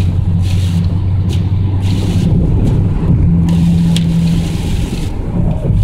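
Inside a car's cabin while driving in rain at about 60 km/h: a steady low drone of engine and tyres on wet road, with a steady hum joining for about a second midway. Rain is hitting the windshield.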